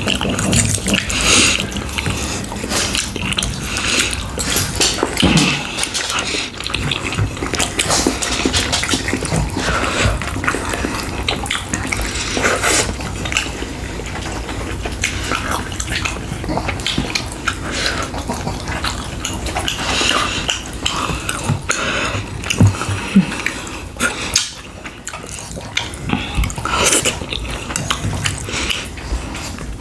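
Close-miked eating: wet chewing and lip smacking of saucy ribs and rice, with irregular clicks and occasional clinks of cutlery on dishes.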